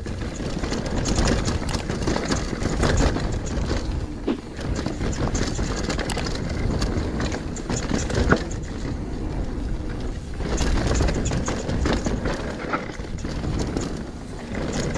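Mountain bike ridden fast down a rough downhill trail: a steady rumble of tyres over the ground, with frequent sharp knocks and rattles from the bike over bumps.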